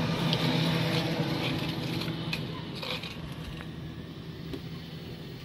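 A knife scraping and prying inside a hard-shelled wood apple (bel), in short faint scrapes, over a steady low hum that fades away.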